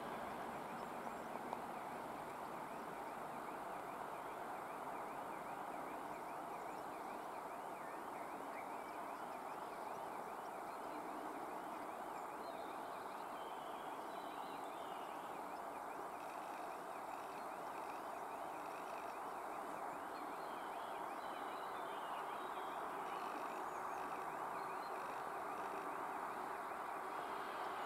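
Faint, steady outdoor background noise with small birds chirping now and then from about the middle on; the noise swells slightly near the end as a ChS8 electric locomotive hauling its train draws closer.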